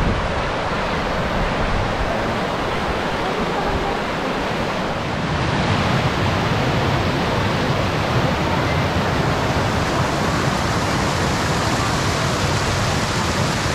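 Waterfall rushing: a loud, steady wash of falling water that grows a little louder about five seconds in.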